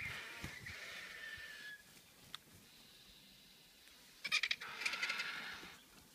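Vultures squabbling while feeding at a carcass, giving harsh, rasping calls: calls trailing off over the first two seconds, a pause with a single click, then a loud rapid chattering burst a little past four seconds in, lasting over a second.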